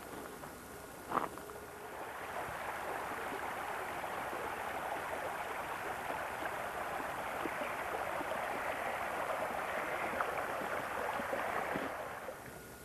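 Creek water running and babbling. It swells in about two seconds in and fades out near the end. A single sharp knock comes about a second in.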